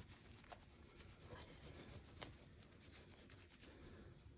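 Near silence: faint rustling of a towel handling a newborn puppy, with a few soft ticks.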